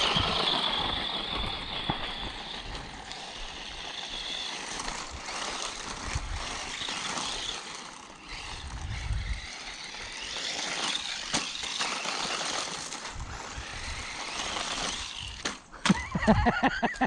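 Small brushed electric motor and gears of a 1:18-scale DEERC 9300 RC truck driving up a hill. A high whine in the first couple of seconds gives way to a rough, rising and falling buzz as the truck works against the climb.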